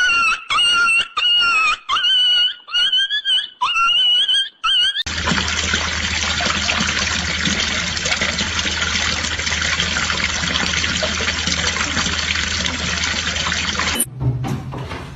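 A quick series of short, high-pitched animal calls, about two a second, then a steady rush of running water with a low hum underneath that cuts off suddenly near the end.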